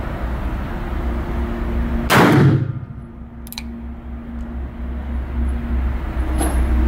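A single shot from a Spanish 1892 regulation revolver firing .32-20 Winchester cartridges, about two seconds in, with a brief ring after it. A light click follows about a second later, over a steady low hum.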